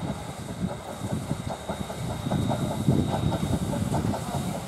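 Steam locomotive approaching with its train of carriages, the working engine and the wheels on the rails a steady rumble that grows louder about halfway through.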